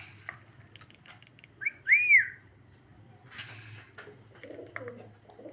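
Pet parrot whistling once, about two seconds in: a short note and then a clear whistle that rises and falls. Faint rustles and clicks follow.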